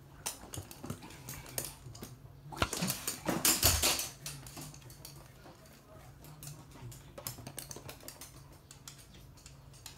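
Toy poodle's claws clicking and tapping on a hard floor as it moves about. A louder clattering scuffle comes from about two and a half to four seconds in.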